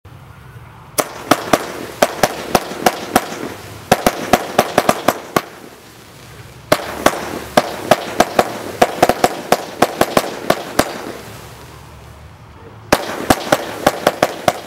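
Zeus Fireworks Red Tiger Tails low-noise barrage cake firing its 20 mm red tiger-tail comets: sharp launch pops at roughly four a second, with a rush of noise between them. They come in three volleys, starting about a second in, about seven seconds in, and near the end, with short lulls between.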